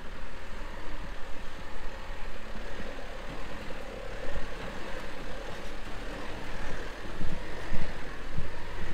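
Four-wheel-drive ute's engine running as it drives slowly through soft sand and passes close by, growing louder towards the middle. Wind buffets the microphone in the last couple of seconds.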